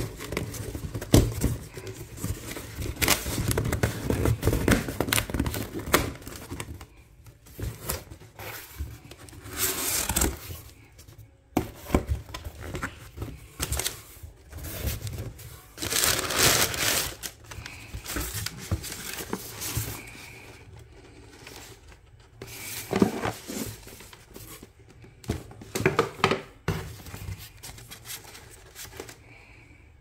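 A cardboard shipping box being opened by hand: packing tape torn open and crumpled kraft-paper packing rustled and crinkled, in irregular bursts with sharp clicks of cardboard handling.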